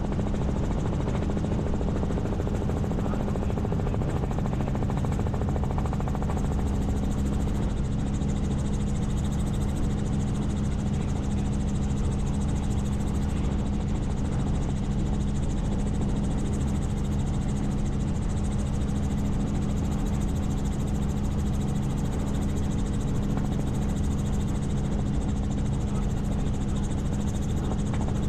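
Helicopter in flight: a steady, unchanging drone of the rotor and turbine engine, with a strong low hum.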